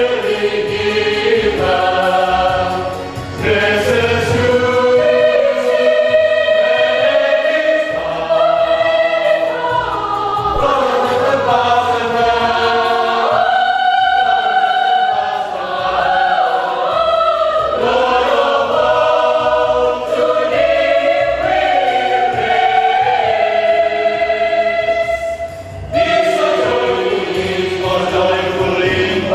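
Choir singing a sustained, harmonised piece in several voice parts, with short breaks between phrases about three seconds in and again near the end.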